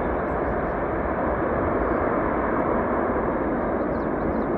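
Steady jet roar of the Airbus A330-343's Rolls-Royce Trent 700 engines as the airliner rolls out along the runway after touchdown.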